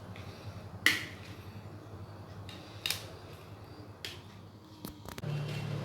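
Knife cutting a block of steamed egg on a plate, the blade clicking against the plate four times about a second apart, loudest about a second in.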